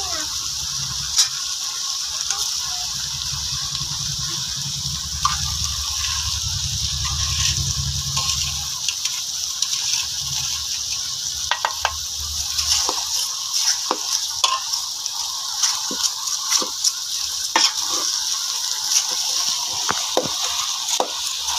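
Hog plum pickle sizzling steadily in an aluminium pot, with a low rumble in the first half. From about halfway, a spoon stirring the mixture knocks and scrapes against the pot in many short clicks.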